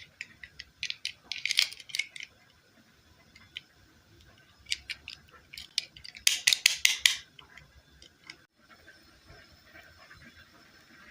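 Small hard plastic toy pieces being handled, giving flurries of quick clicks and rattles: one about a second in and a louder one around six seconds in.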